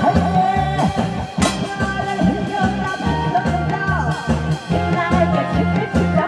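A woman singing a Korean trot song live into a headset microphone over an amplified backing track with a steady beat.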